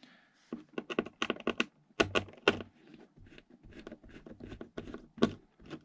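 Irregular clicks and light taps of hands handling wiring, plastic connectors and parts in a foam RC jet's fuselage bay, loudest about two seconds in and again near the end.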